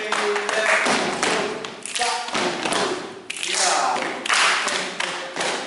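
A group of children practising body percussion, clapping their hands and tapping and slapping their bodies. Many strokes overlap in waves rather than falling together in one beat.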